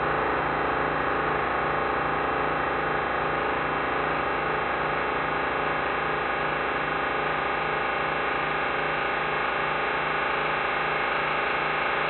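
Computer-generated sonification from a MaxMSP patch: a dense, steady electronic drone of many held tones, with a low pulse about three times a second underneath.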